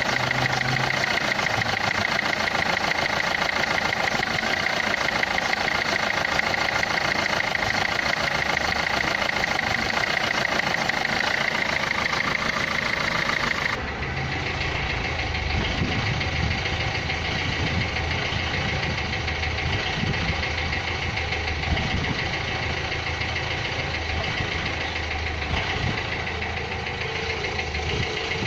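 Renault Clio III's 1.5 dCi four-cylinder diesel idling with a steady rapid clatter, a noise the uploader puts down to the injectors. About halfway through the sound changes abruptly and turns duller.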